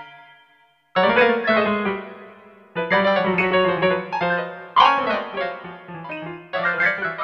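MIDI piano music: a short chord, a pause of about a second, then phrases of struck chords and melody notes, each fading before the next group comes in.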